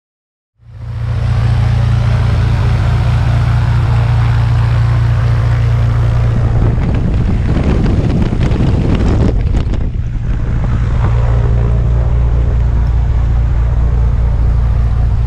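Small single-engine plane's piston engine running steadily with its propeller turning, coming in abruptly about half a second in, with propeller wash buffeting the microphone. The buffeting is heaviest from about six and a half to ten seconds in.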